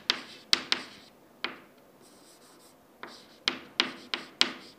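Chalk writing numbers on a chalkboard: a run of sharp taps and short scratches as figures are written, in two bursts with a pause of about a second and a half between them.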